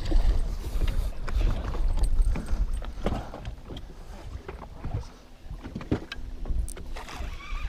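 Water splashing and lapping at the side of a boat as a hooked muskie is fought, with wind buffeting the microphone and scattered knocks, easing off in the second half.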